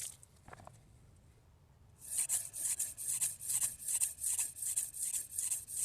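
Carbon-steel kitchen knife blade stroked back and forth on a Shapton Glass 500-grit whetstone, a rasping hiss at about three and a half strokes a second that starts about two seconds in. These are sweeping passes along the whole edge to blend it smooth after the chips have been ground out.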